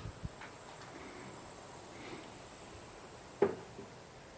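Quiet room tone with a faint, steady high-pitched tone, and one brief short sound about three and a half seconds in.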